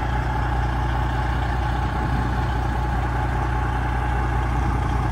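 Freightliner Classic semi-truck's diesel engine idling steadily with a deep, even drone.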